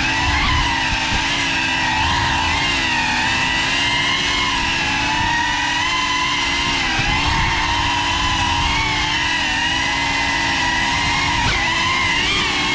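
Small FPV quadcopter's motors and propellers whining steadily at close range, the pitch drifting up and down with the throttle and swinging more quickly near the end.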